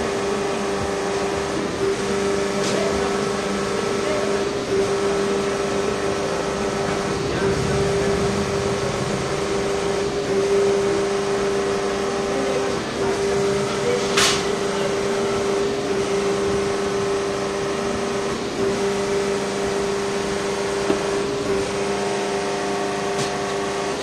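Steady hum of workshop machinery running, a constant drone with one held tone, and a single sharp click about fourteen seconds in.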